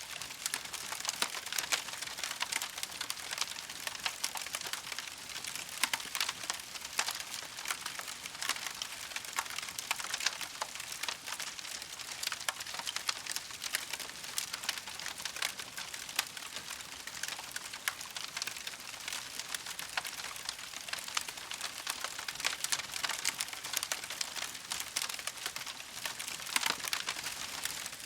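Campfire crackling steadily: a dense run of small pops and snaps over a soft hiss, with no pause.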